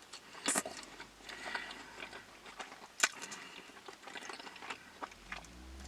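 A person chewing and eating food at close range, with scattered small clicks and crackles, the sharpest about half a second in and again about three seconds in.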